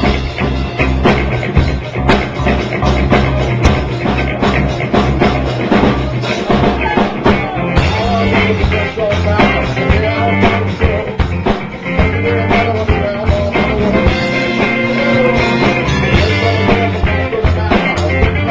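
A rock band playing live, with a busy drum kit driving a steady beat under sustained instruments that keep going without a break.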